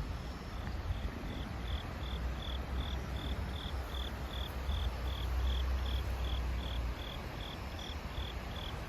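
An insect chirping steadily at a high pitch, about three short chirps a second, starting about a second in, over a low steady rumble.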